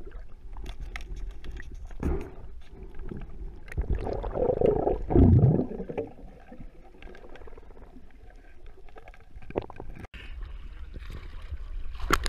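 Muffled water sound heard through a camera housing held underwater: low sloshing and scattered faint clicks, with a louder gurgle of bubbles about four to six seconds in. Near the end a splash as the camera comes up through the surface.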